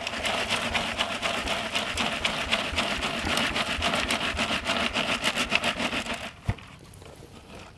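A round riddle with 5 mm wire mesh shaken rapidly over a bucket, sieving soil out of a mass of worms: a fast, even, scratchy rattle of soil on the mesh. It stops about six seconds in, followed by a single knock.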